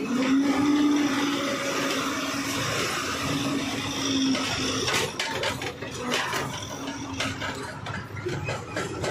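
Ashok Leyland 14-tyre truck's diesel engine running, heard from inside the cab as the truck pulls away, with a steady hum for about the first four seconds and again briefly near the end. Clicks and rattles join in from about five seconds in.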